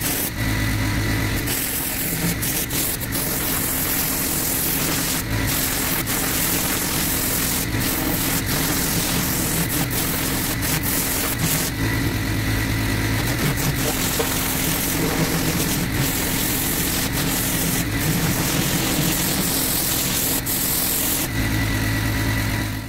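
Pressure washer running with its turbo nozzle lance blasting weeds out of block-paving joints: a steady engine drone under the hiss of the water jet. The spraying pauses briefly about halfway through and again near the end, leaving the machine running on its own.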